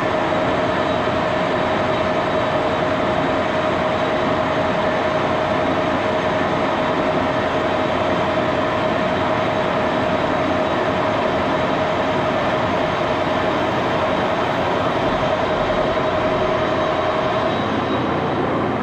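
1941 Axelson gearhead lathe running under power while a high-speed steel tool takes a finishing cut on a small-diameter free-machining steel part. A steady whine carries on through the cut and stops shortly before the end.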